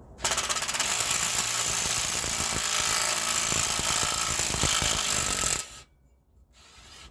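Impact wrench hammering on a stuck 3/4-inch bolt, a loud rapid-fire rattle for about five seconds that cuts off suddenly, working the rusted-in bolt loose.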